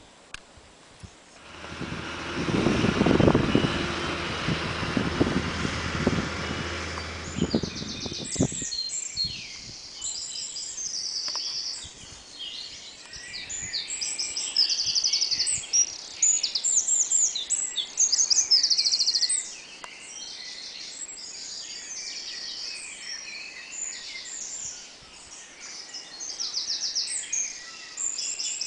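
Many songbirds singing together in a dense chorus of repeated high phrases and rapid trills. For the first several seconds a loud rushing noise with a low hum covers them, then cuts off suddenly about a third of the way in.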